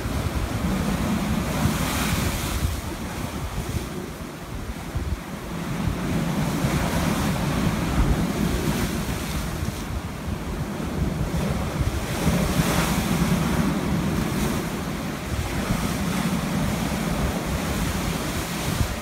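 Heavy high-tide surf breaking and washing against rocks at the foot of a seawall stairway, a continuous rush that swells into louder surges and falls back every few seconds. Wind buffets the microphone throughout.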